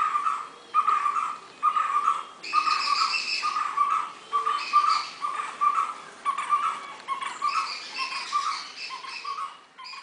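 White-cheeked barbet calling: a steady series of repeated 'kutroo' notes, about one and a half a second, growing fainter over the last few seconds.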